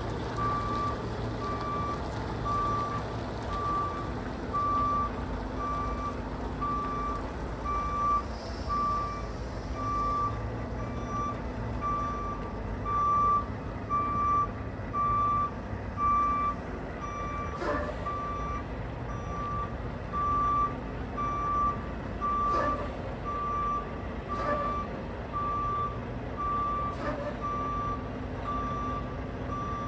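Semi-truck backing up with its reverse alarm beeping steadily, a little over one beep a second, over the low running of its diesel engine. A few short, sharp sounds come in the second half.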